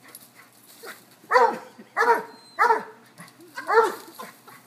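Dog barking four times while playing chase, each bark short and falling in pitch.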